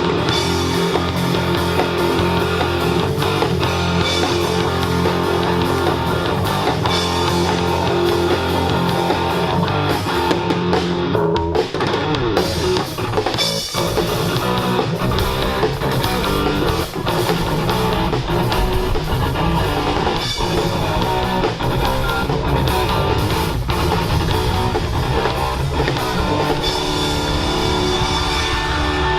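Live rock band playing: electric guitar, bass and drum kit, loud and continuous, with the arrangement shifting about halfway through.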